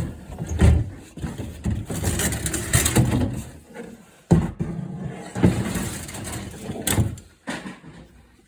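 Knocks and scraping as scrap totes and containers are moved and set down: four sharp knocks with rustling and scraping between them.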